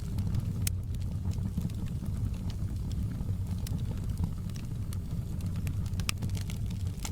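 Wood fire in a fireplace crackling: a handful of sharp pops scattered over a steady low rumble.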